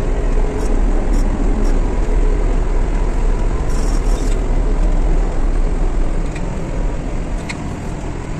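Backhoe loader's diesel engine running steadily under way, heard from inside the cab, with a deep low rumble and a few light clicks and rattles.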